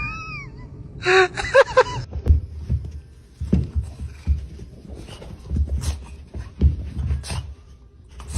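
Animal cries: a wavering, high whine that fades out, then a short harsh cry about a second in, followed by scattered low thumps and scuffling.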